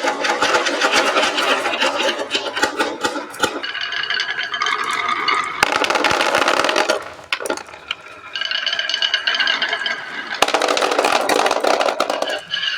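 Marbles clattering and rattling down a wooden marble run track in three rapid runs of clicks, with a steadier humming tone between them.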